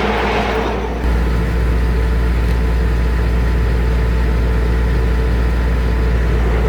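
Circular sawmill running steadily with a deep machine hum. A higher rushing noise of the blade in the spruce fades out about a second in, leaving the mill running without cutting.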